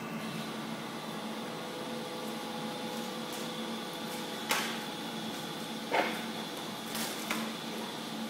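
About four short, sharp crackles and pops from a thin folded aluminium sheet being flexed and its protective plastic film peeled off, over a steady hum.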